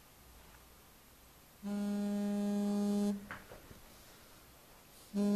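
Electronic buzzer tone: a flat, buzzy held note that sounds for about a second and a half in the middle, then starts again near the end, with a brief faint rising sweep between the two.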